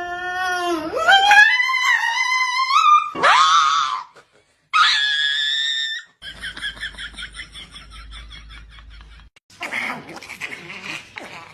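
A dog howling: long wails that start low and climb steeply in pitch, then a high wavering note, followed by a rapid run of short pulsing sounds.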